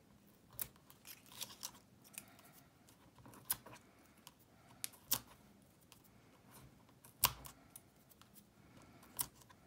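Hands working with paper and card: sparse small clicks, taps and rustles as backing papers are picked off foam adhesive dimensionals with a pointed craft tool and die-cut paper flowers are pressed onto the card. A louder tap comes about seven seconds in.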